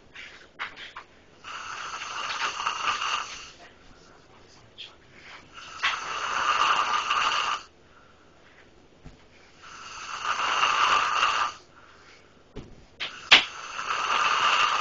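A person snoring loudly: four long snores about four seconds apart, each lasting a second and a half to two seconds. There is a sharp click just as the last one starts.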